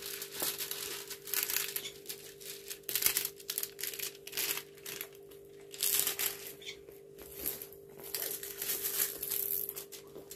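Clear plastic film on a diamond painting canvas crinkling and rustling again and again as hands smooth it flat to work out the wrinkles.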